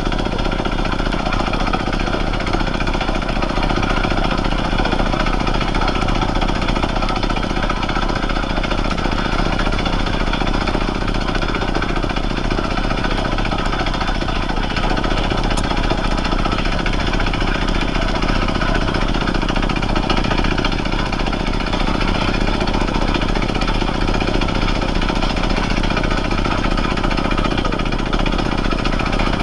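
Horizontal quarry rock drill running steadily, its drill hammering into rock without a break.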